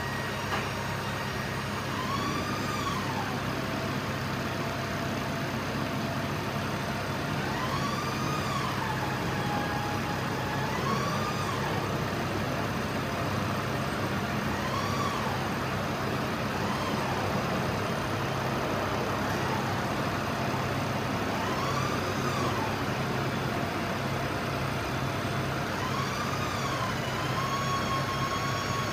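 Versalift aerial bucket's hydraulic system working on its emergency-power pump, the only power the bucket unit runs on: a steady low hum under a pitched whine that swoops up and down about six or seven times as the boom is operated.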